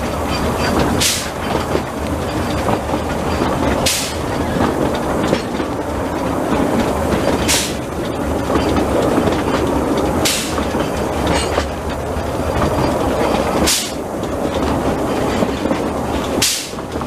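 Narrow-gauge steam train running along the line, heard from an open carriage just behind the locomotive: steady rumble and rattle of wheels and coach. A brief sharp hissing clack cuts through every three seconds or so, six times in all.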